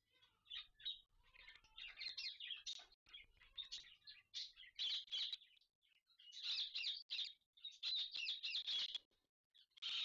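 Indian ringneck parakeets chattering in quick clusters of high, scratchy calls while a pair mates, the calling loudest in the second half.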